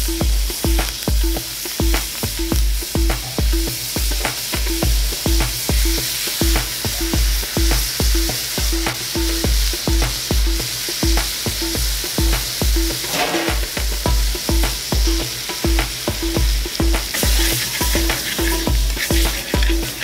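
Masala-coated chicken sizzling and frying in an aluminium pan over a gas flame, stirred and scraped with a metal spoon. A steady bass beat of background music runs underneath.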